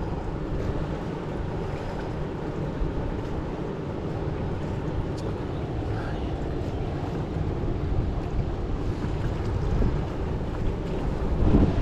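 Wind buffeting the microphone outdoors, a steady low rumble with a louder swell near the end.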